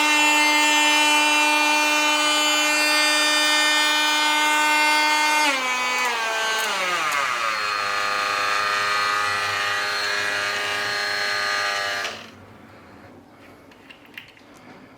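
INGCO cordless oscillating multi-tool running free with no load, a steady high-pitched motor whine at a fast speed setting. About five and a half seconds in it drops to a lower speed setting and runs on. It stops about twelve seconds in, followed by a few faint clicks.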